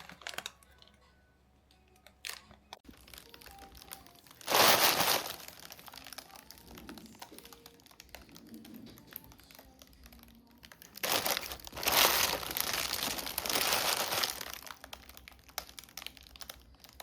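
Crinkling, rustling sounds in two loud spells, a short one about four seconds in and a longer one from about eleven to fifteen seconds, with scattered light clicks in between.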